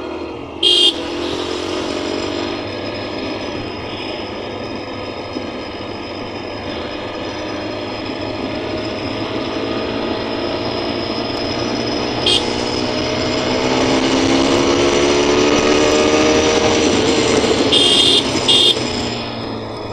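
Motorcycle engine and road noise while riding in traffic, the engine note climbing steadily as it speeds up through the middle of the stretch. Short vehicle horn toots sound about a second in, once midway, and twice near the end.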